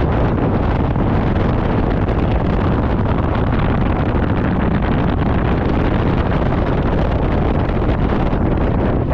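Steady wind buffeting the microphone of a camera riding on a moving motor scooter, with the scooter's engine and road noise running underneath.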